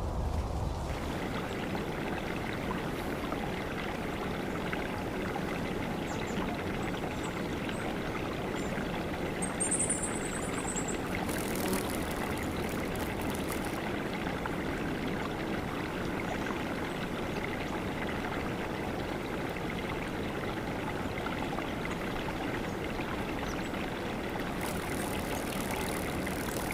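Steady rushing of running water, an even wash of noise without clear surges. A short, high chirp sounds about ten seconds in.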